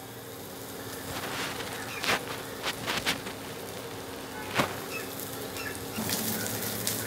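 Coated pomfret pieces shallow-frying in a little oil in a non-stick pan: a steady sizzle with a few sharp spits and pops, over a steady buzzing hum from the induction cooktop.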